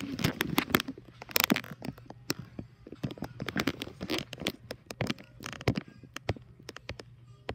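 Slime being squished and pulled by hand, giving irregular crackling clicks and pops.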